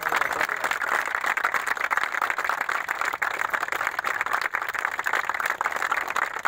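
A large group of people clapping together in applause, a dense, steady patter of many hand claps that starts suddenly and eases off near the end.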